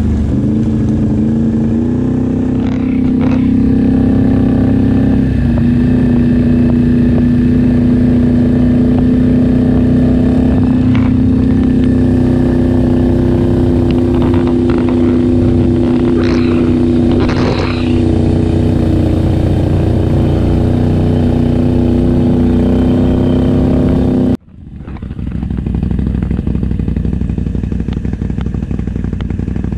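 ATV (quad) engine running steadily at riding speed, its pitch stepping up slightly about one and five seconds in. About 24 seconds in the sound cuts off abruptly and gives way to a rougher, less even engine noise from quads running through shallow river water.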